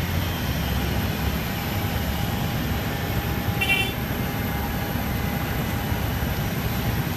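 Steady loud rumble of a parked jet airliner and ground equipment, with a faint steady whine over it. A short high-pitched chirp sounds about three and a half seconds in.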